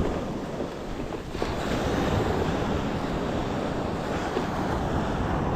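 Surf washing onto a beach, with wind buffeting the microphone.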